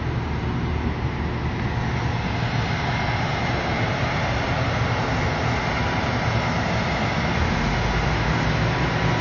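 Steady drone of heavy machinery running, a low rumble with a thin steady whine over it, growing slightly louder near the end.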